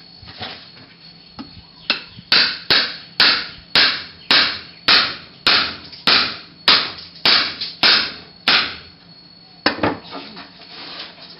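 A long knife chopping into the rind of a whole jackfruit: a steady run of about a dozen sharp blows, roughly two a second, each with a short rasping tail, then a pause and one more blow near the end.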